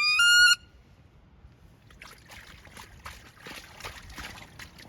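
A loud honking waterfowl call, its pitch dipping and then holding, that cuts off about half a second in. From about two seconds in comes a crackling, splashy rustle of movement in water and cover.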